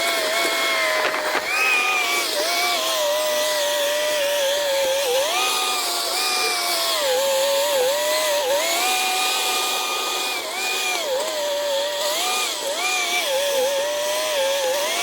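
A small motor whining continuously, its pitch stepping up and down every second or two as the load or speed changes.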